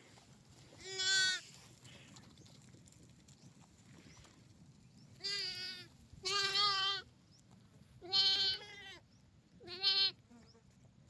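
A lamb bleating five times: high, quavering calls, each well under a second long, with two close together near the middle.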